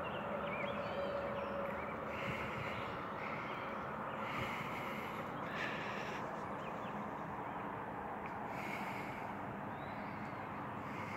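Steady outdoor hiss with a bird calling about six times in short, separate calls, spaced irregularly.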